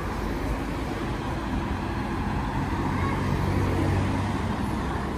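Road traffic: a motor vehicle's engine hum swells about two seconds in and eases off near the end, over a steady street noise bed.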